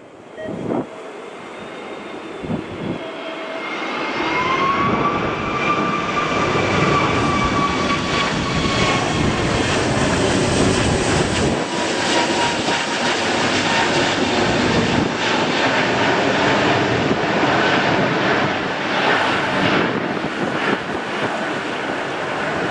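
Jet airliner's engines running loud as it passes near, a whine climbing in pitch about four seconds in and then holding steady over the rush of engine noise.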